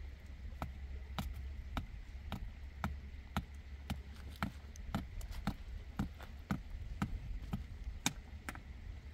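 A steady series of sharp knocks, about two a second, over a low rumble.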